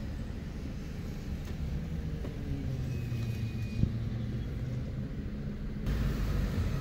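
Car driving along a road: a steady low rumble of engine and tyres. Near the end the sound suddenly gets louder, with more hiss.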